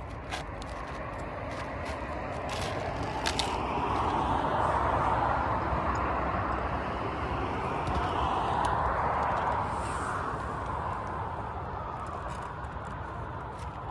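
A road vehicle passing by, its noise swelling over a few seconds and fading away, with faint clicks over it.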